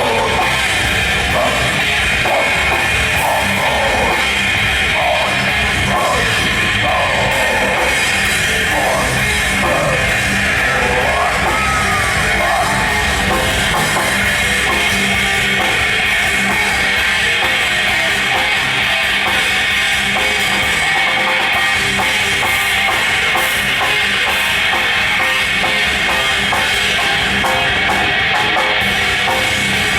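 Loud heavy rock music with a driving drum kit, holding at a steady level throughout.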